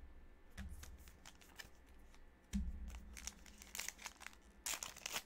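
Trading card pack wrapper being handled and crinkled, with scattered light clicks, two dull bumps, and a louder burst of crinkling near the end as the pack is torn open.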